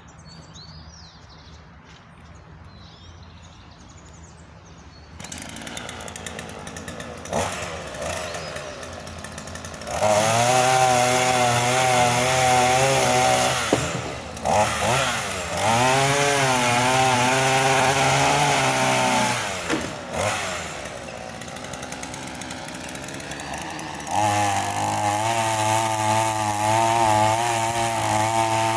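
Small two-stroke chainsaw engine, a cheap Chinese-made saw, starting up about five seconds in and idling. It is then run up to full throttle three times, dropping back to idle in between.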